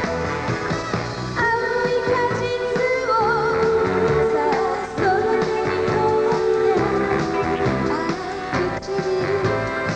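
Female singer singing a Japanese pop song over a backing band; her voice comes in about a second and a half in, holding long notes with vibrato.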